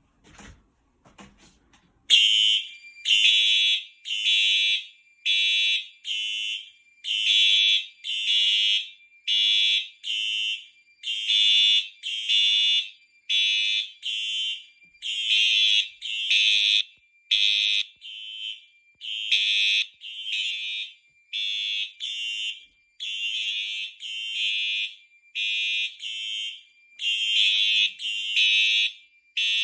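Two fire alarm horn strobes, a Faraday 2834 and a Simplex 4903-9236, sounding in alarm after a manual pull station is pulled. The horns start about two seconds in with loud, rapidly repeating pulses that fall unevenly because the two devices are out of step, over a steady high tone.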